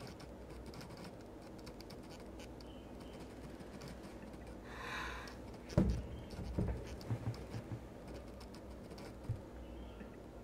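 Typing on a computer keyboard: light, scattered key clicks, with a short hiss about five seconds in and a run of heavier, dull knocks just after it.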